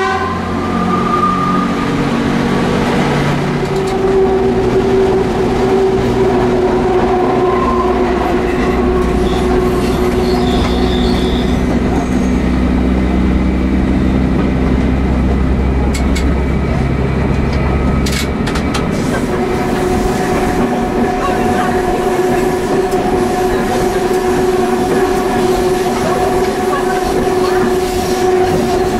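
Diesel railcar running along the line, heard from the driver's cab: a steady engine and transmission hum over wheel-on-rail rumble. The heavy low rumble eases about two-thirds of the way through, with a few sharp clicks and some wheel squeal.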